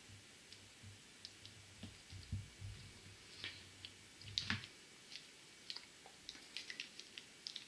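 Faint scattered squeaks and ticks of a felt-tip marker drawing short strokes on a whiteboard, with two longer squeaks about three and a half and four and a half seconds in.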